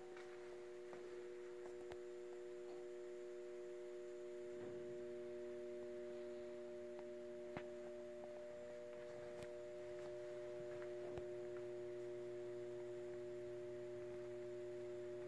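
Faint, steady electrical hum of several fixed tones from the powered O gauge model train layout, with a lower hum tone joining about nine seconds in and a few light clicks.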